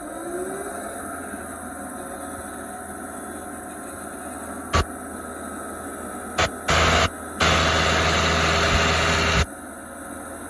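Vermeer SC60TX stump grinder's engine running, speeding up briefly at the start. Around the middle come several loud bursts of rushing noise, the last lasting about two seconds.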